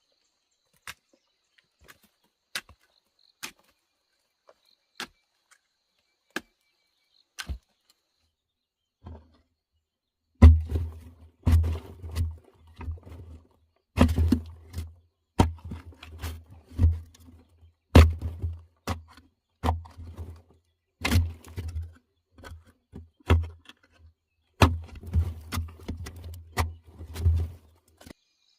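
A few sharp clicks, then from about ten seconds in a run of heavy dull thuds, roughly one or two a second, each with a sharp knock on top: hand-tool blows in shelter-building work.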